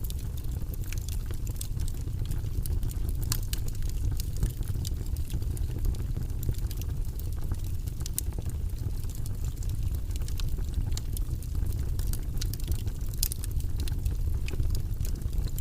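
Burning wood fire crackling: irregular sharp pops and snaps over a steady low rumble.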